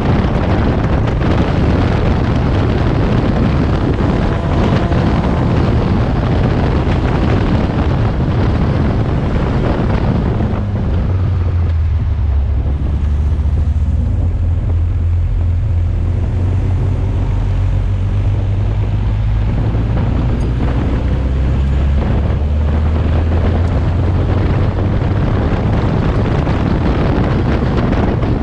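Onboard sound of an open-cockpit Seven-style race car at racing speed: the engine running hard under heavy wind buffeting on the microphone. For about ten seconds in the middle the sound turns to a deeper, steadier drone, and the brighter sound returns after that.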